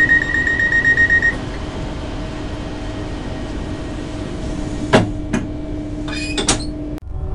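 Southeastern Class 395 high-speed train's passenger door: rapid warning beeps for about the first second over a steady hum, then the sliding door shutting with a sharp knock about five seconds in, followed by a short clatter of further knocks.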